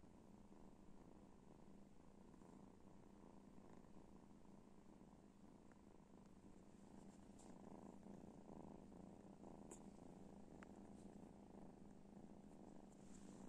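Domestic cat purring steadily and faintly as it lies on a person's chest close to the microphone.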